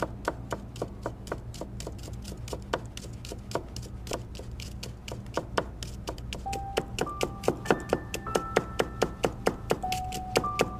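A Japanese vegetable knife chopping finely through white leek onto a wooden cutting board, in a steady rhythm of about three strokes a second. From about six and a half seconds in, background music of sustained notes stepping between pitches plays over the chopping.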